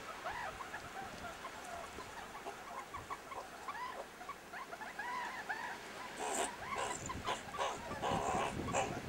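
Meerkats play-fighting, giving a rapid string of short squeaky chirps that turn louder and harsher about six seconds in.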